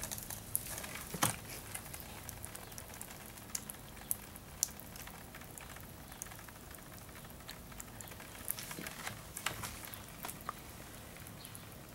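Scattered small clicks and crackles, irregular and sparse, from the fursuit's fur and sticky, ice-cream-covered muzzle brushing against the camera, over a faint steady background.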